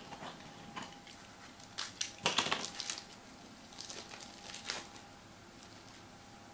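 Crinkling of a Panini Playbook football card pack's foil wrapper as hands pull the cards out. It comes in a few short bursts, the loudest about two seconds in.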